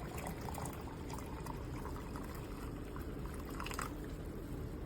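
Freshly boiled water pouring in a steady stream from a glass electric kettle into a French press.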